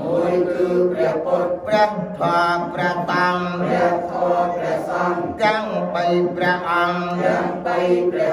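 Buddhist monks chanting together in unison, a steady, even recitation of many male voices on a held pitch.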